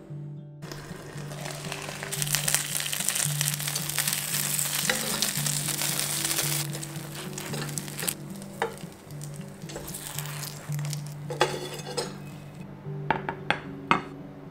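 Gyoza sizzling in a frying pan, a loud steady sizzle that eases off and stops about two seconds before the end. Near the end come a few sharp clicks and knocks.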